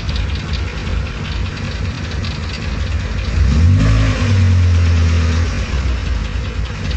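Restored Toyota Starlet's 1.3-litre four-cylinder engine idling. A little past three seconds in it is revved up and held for about two seconds, then drops back to idle.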